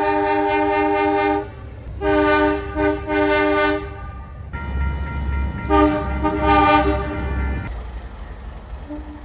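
Train horn sounding a chord: a long blast that stops about a second in, three short toots, then another longer blast near the middle, with a low engine rumble beneath the last one.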